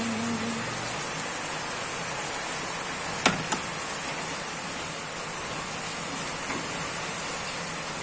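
Pot of chicken and vegetable stew boiling: a steady bubbling hiss, with a sharp knock a little over three seconds in and a smaller one just after.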